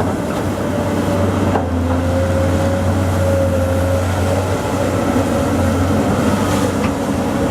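Excavator's diesel engine running steadily, a low hum with a steady higher whine over it.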